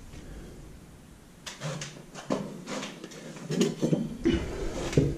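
Irregular short knocks and scrapes of hand tools and materials being handled, starting about a second and a half in after a quiet moment.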